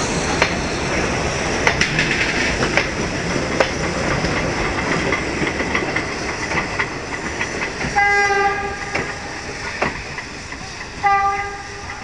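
Passenger coaches rolling past close by, wheels clicking over rail joints, the noise fading as the train pulls away. About eight seconds in and again near the end, steam locomotive 230.516 gives two short whistle blasts.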